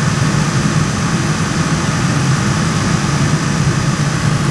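A car's heater/AC blower fan running steadily on battery power with the key on and the engine off, drawing the battery down.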